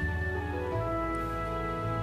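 Background music: slow, held chords, the notes changing about every second.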